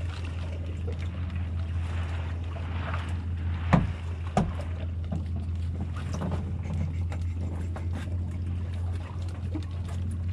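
Small fishing boat's outboard motor running at a steady low hum, with two sharp knocks close together about four seconds in.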